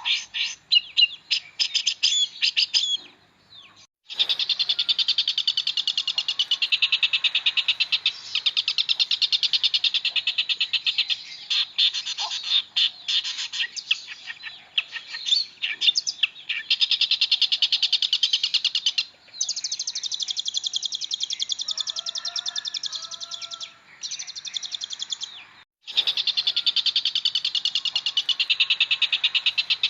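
Long-tailed shrike (pentet) singing. It opens with varied whistled chirps, then goes into long runs of fast, rattling trills, broken by a few brief pauses.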